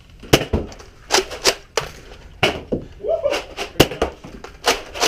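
A quick, irregular run of sharp knocks and clacks, about ten in five seconds, in a small room.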